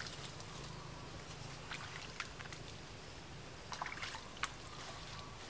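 Hands working in shallow muddy pond water: small irregular splashes, sloshes and drips, a few of them sharper near the middle and about four seconds in.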